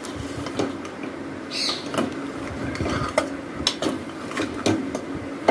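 A metal ladle stirring raw mutton pieces and spices in an aluminium pressure cooker, with irregular clinks and scrapes as it knocks against the sides of the pot.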